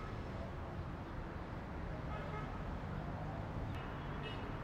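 Steady city street traffic noise, a low rumble, with a couple of short faint horn toots about two seconds in and near the end.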